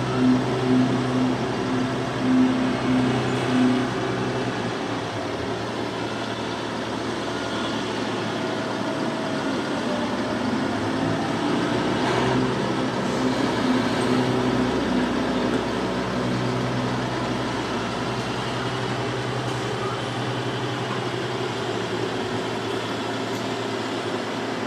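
Heavy road-construction machinery running: an engine's steady hum under a continuous rushing, grinding noise, with a few louder surges in the first few seconds.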